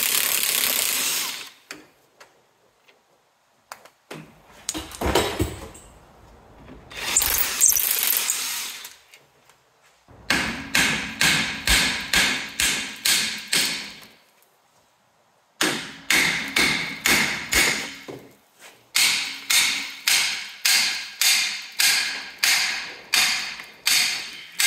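A sandblaster's air-and-grit blast hisses in two short spells, cleaning a rusty suspension nut and bolt. Then come two long runs of sharp knocks, about two a second, as the seized bolt is worked loose.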